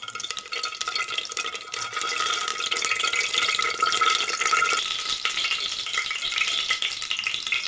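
Ghee melting into heating oil in a pressure cooker, sizzling and crackling with many fine pops, growing louder about two seconds in. A steady high tone runs underneath.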